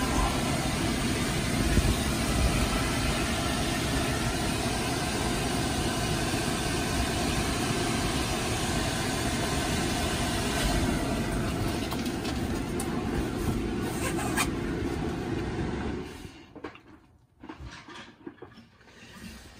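Steady rushing noise of a small electric blower or air pump running, which cuts off abruptly about three-quarters of the way through. Faint irregular rustling of the vinyl follows.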